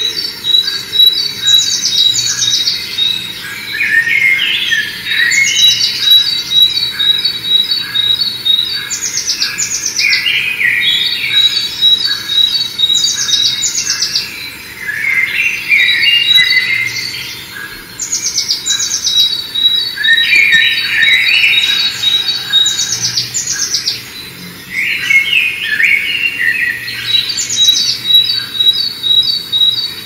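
Small songbird singing close by, repeating a high song phrase every few seconds. Each phrase has quick falling notes and ends in a fast, even trill.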